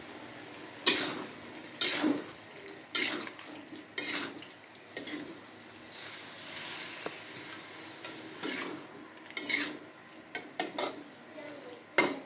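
Metal spatula scraping and knocking against a metal wok as squid in thick balado sauce is stirred, roughly one stroke a second, over a low sizzle of the sauce frying.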